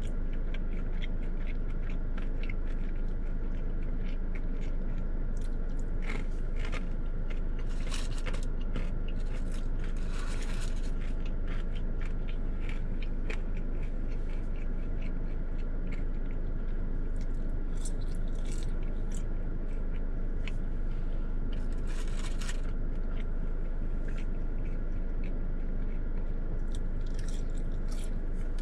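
Close-up chewing and crunching of breaded boneless chicken wings coated in Parmesan cheese crumbles, crisp crunches throughout with louder clusters several times. A steady low hum runs underneath.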